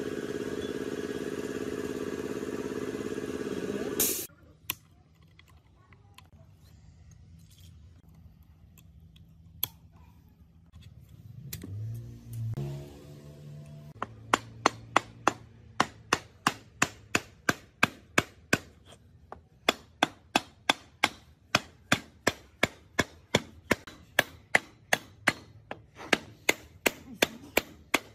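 A soft-faced mallet strikes the end of a gearbox shaft, driving it out of the old BMW transmission case. The sharp knocks start about halfway in and go on steadily at roughly two or three a second. Before them, a steady machine hum cuts off about four seconds in.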